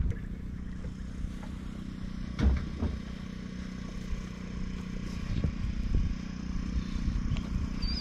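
Steady low motor hum with a few short knocks and rattles, one knock about two and a half seconds in.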